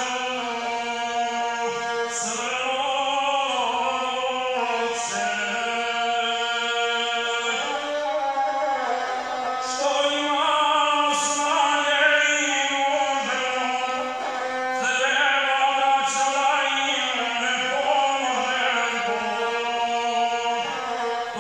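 A man chanting an epic song in one unbroken, wavering line, accompanying himself on the gusle, a single-string bowed folk fiddle.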